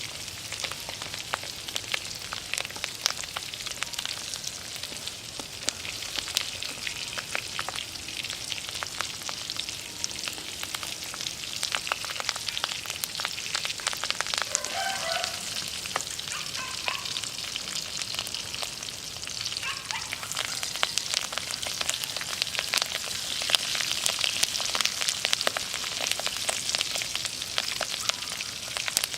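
Batter-coated loach and betel leaves deep-frying in hot oil: a dense, steady sizzle with many small crackles and pops.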